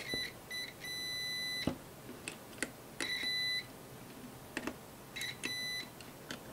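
Digital multimeter in continuity mode beeping as its probe tips touch across each newly fitted glass fuse in turn, with light clicks of the probes. There are a few short chirps, then steady beeps of about half a second, each one showing the fuse conducts.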